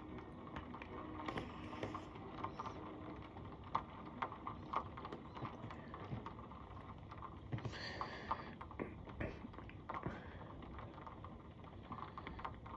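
Steady rain: a soft, even hiss with irregular ticks and taps of drops landing close by, and a brief louder rush of noise about eight seconds in.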